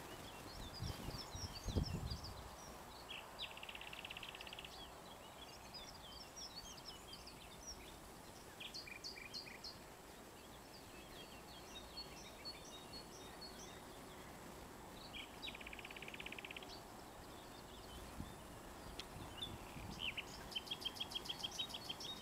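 Birds chirping and singing, many short high calls, with a buzzy trill about four seconds in and again about sixteen seconds in, and a fast run of pulsed notes near the end. A few low thumps near the start.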